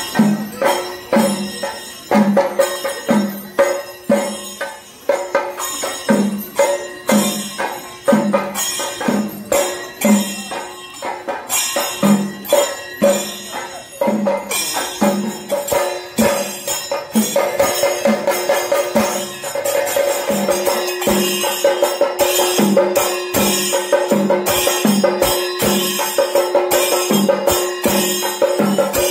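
Chenda melam: Kerala temple percussion ensemble of chenda drums and elathalam hand cymbals, beating a steady rhythm. A steady held tone joins in about seventeen seconds in.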